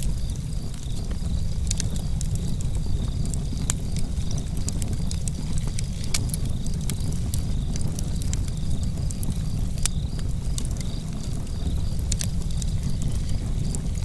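Campfire burning, with a steady low rumble and scattered sharp crackles and pops from the wood. Crickets chirp steadily and faintly behind it.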